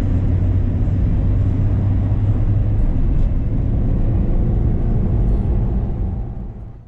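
Steady low rumble of engine and road noise inside a moving van's cabin, fading out near the end.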